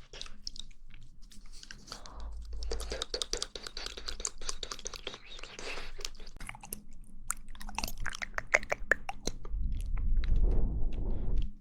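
Close-miked mouth sounds of eating jelly: wet chewing and squelching with rapid small clicks and lip smacks. A louder low rumble joins in about two seconds in and again for the last two seconds.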